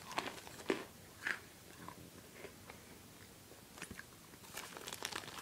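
Jack Russell terrier chewing a piece of chocolate: scattered sharp crunching clicks, a few louder ones in the first second and a half and a denser crackly run near the end.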